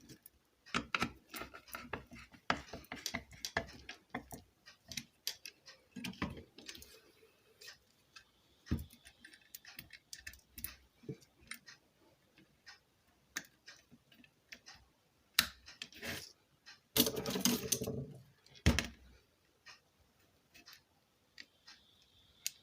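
Irregular clicks and taps of ceiling fan parts being handled and fitted together by hand, with a louder clatter lasting about a second near the end.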